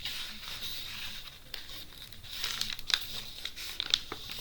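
Crinkling and rustling of a diamond painting canvas and its cover sheet being handled and peeled back from the sticky adhesive, with a run of sharp crackles in the second half.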